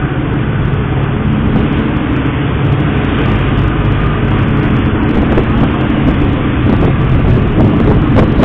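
Utility boat's engine running steadily under way: a loud, constant low drone with a rushing noise over it.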